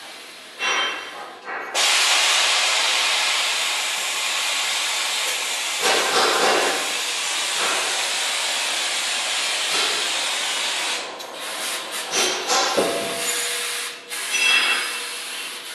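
Vacuum tube lifter hissing with rushing air as it grips and lifts a gas cylinder. The steady hiss starts suddenly about two seconds in, then breaks into shorter bursts from about eleven seconds, as the lifted cylinder is moved and lowered.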